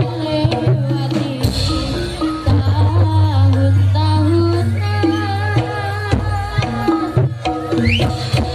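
Jaranan gamelan music: kendang hand drums beating briskly under a wavering melody line, over a steady low hum that drops out and comes back.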